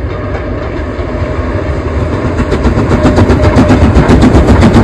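LMS Black Five steam locomotive No. 45407 working a train, its exhaust chuffing in a fast, even beat over a rumble, growing louder from about halfway through as it draws near.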